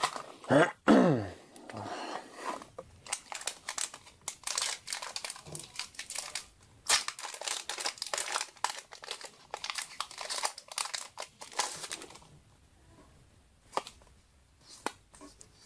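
Foil wrapper of a Yu-Gi-Oh booster pack being torn open and crinkled, with a short falling squeal from the tear about half a second in. The crackling dies down after about twelve seconds, leaving a few light clicks.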